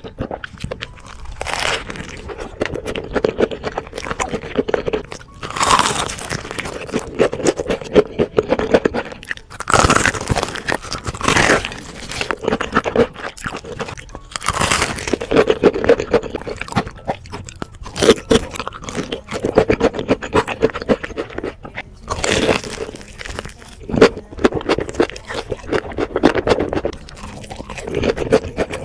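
Close-up crunching and chewing of crispy fried chicken and a fried-chicken burger: a loud crackling bite every few seconds, with steady crunchy chewing in between.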